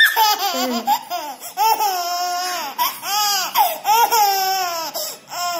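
A toddler laughing out loud in a string of high, arching peals.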